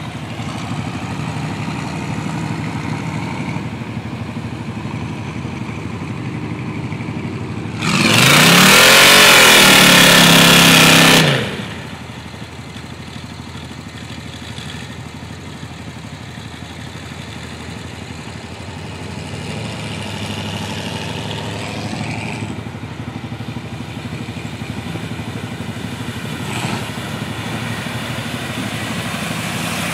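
Off-road vehicle engines running as trucks drive through a flooded mud pit. About eight seconds in, a nearby engine revs hard for about three seconds, rising and then falling in pitch, much louder than the rest.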